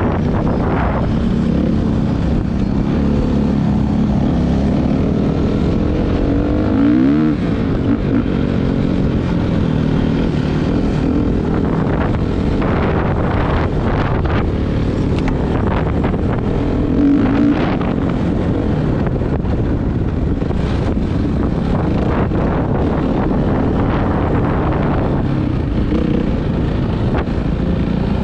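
Suzuki RM-Z450 motocross bike's single-cylinder four-stroke engine running hard while riding off-road, revving up and down, with wind buffeting the microphone. It gives two brief, louder revs, about seven and seventeen seconds in.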